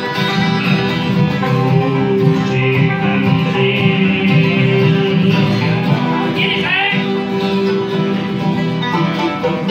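A bluegrass band playing live on acoustic guitars and banjo, with a man singing over the strummed and picked strings.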